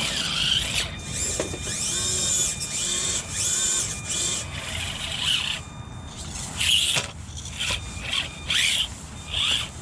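Axial SCX24 micro crawler's small electric motor and gears whining in short bursts that rise and fall in pitch with the throttle, as it crawls over rocks.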